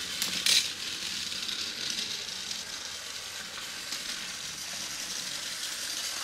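Motorized Thomas & Friends TrackMaster toy engine running along plastic track: a steady, fairly even rattling whir with a few faint clicks.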